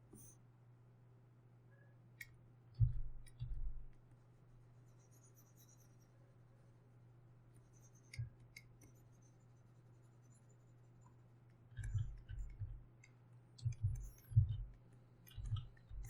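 Faint clicking and scattered low knocks of hands working a computer's input devices on a desk, over a steady low hum.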